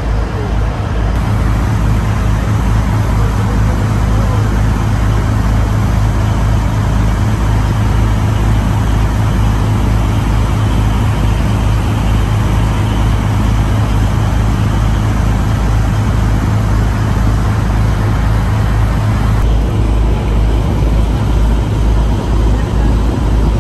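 A tour boat's engine running steadily, heard as a loud low rumble under an even rush of noise, with irregular low buffeting.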